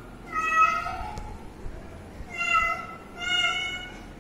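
A kitten meowing three times in high-pitched calls, the first about half a second in and the other two close together in the second half.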